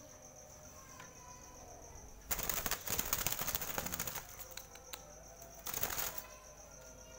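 Zebra dove (perkutut) beating its wings as it is caught by hand. There is a flurry of about two seconds a little after two seconds in, and a short second flurry near the end.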